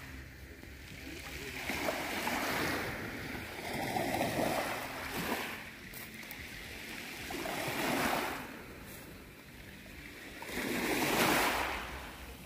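Sea waves washing in and drawing back, four swells of hiss that rise and fade a few seconds apart, over a low steady rumble.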